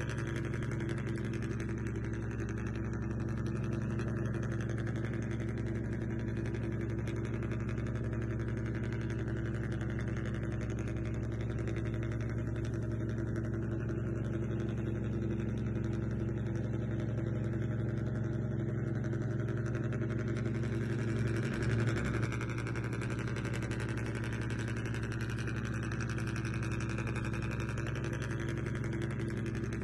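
Steady idling engine drone from a remote-control model, an even hum that holds one pitch, with a brief low rumble about three-quarters of the way through.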